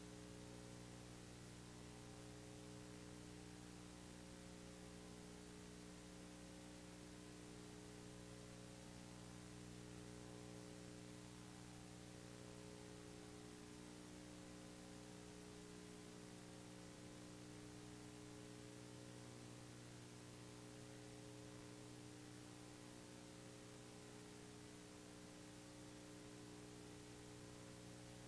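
Near silence: a faint, steady electrical hum with hiss, and no game sound.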